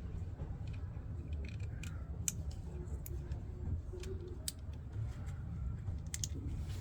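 Scattered sharp clicks and small handling noises from wiring and connectors being fitted to a washing machine drain pump, over a steady low hum.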